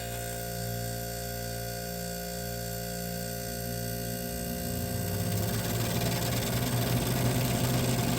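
1978 Gibson Air Sweep window air conditioner running with a steady hum and the rush of its fan, growing louder about halfway through. Its condenser fan is out of balance and rubbing on the shroud.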